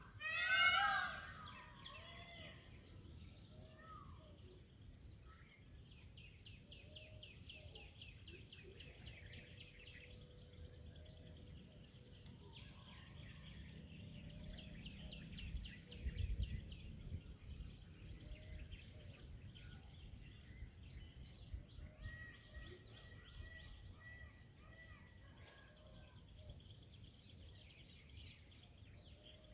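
Faint outdoor ambience with small birds chirping in quick trills and a steady high-pitched whine. A loud pitched call fades out in the first second or so.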